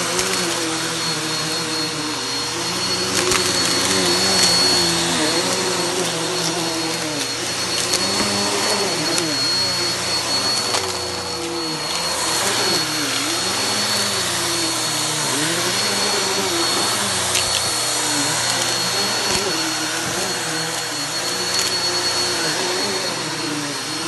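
Bissell PowerForce bagless upright vacuum running over shag rugs, its motor pitch wavering up and down again and again as it works the pile, with a steady high whine. A few sharp clicks, mostly in the first third, are grit being sucked up.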